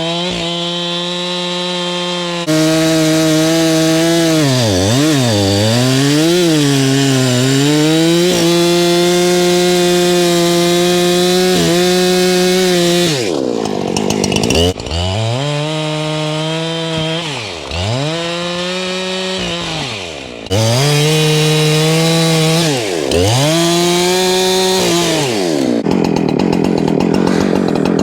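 Husqvarna gas chainsaw running at full throttle while cutting into a tree. Its engine note dips sharply and climbs back about ten times, as the throttle is let off and squeezed again.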